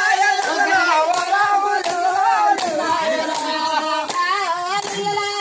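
Voices singing a folk song, with hand claps keeping time.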